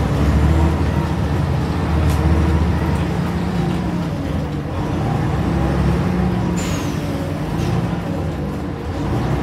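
Scania N94UD double-decker bus's five-cylinder diesel engine running, heard from inside the lower deck, its note rising and falling. A couple of sharp clicks cut through, about two seconds in and again near seven seconds, the second with a short falling squeal.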